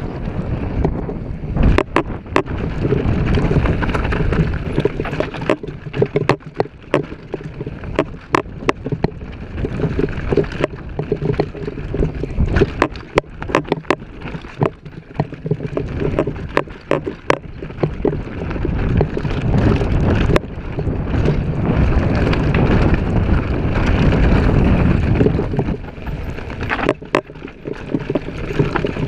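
Downhill mountain bike ridden fast over a rough dirt trail, heard from an onboard action camera: wind buffeting the microphone over a steady rumble of tyres on dirt. Frequent sharp clacks and rattles come as the bike hits bumps.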